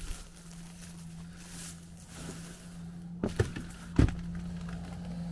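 Footsteps and knocks on the debris-strewn floorboards of a burned-out building: two sharp knocks just past three seconds in and a louder one about a second later, over a steady low hum.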